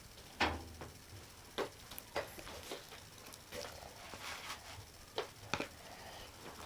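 Glue-and-borax slime being stirred with a spoon in a bowl: irregular sticky squelches and spoon clicks, about eight sharp ones spread through the stretch.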